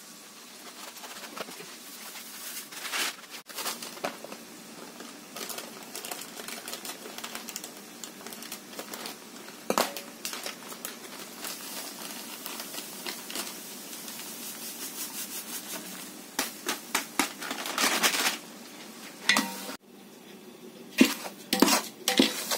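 Metal ladle scraping and knocking against a large aluminium pot as semolina is poured in and stirred to roast, with the knocks coming thick and fast in the last few seconds.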